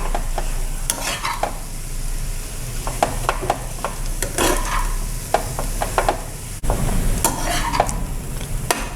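A spatula stirring and scraping ground urad dal and chana dal paste around a kadai, with the oil sizzling steadily underneath. The paste is being sautéed until it turns dry and crumbly, the stage at which usili is ready for the next ingredients.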